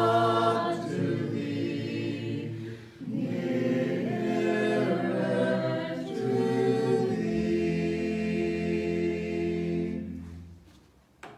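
A small group of voices singing a hymn a cappella, without instruments, ending on a long held final chord that fades away.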